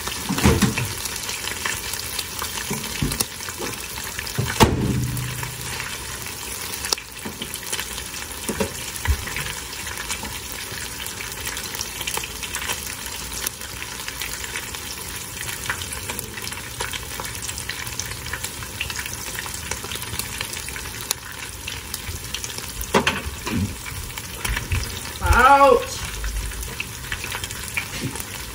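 Chicken tacos shallow-frying in oil in a skillet, a steady sizzle, with a few sharp knocks and clatters.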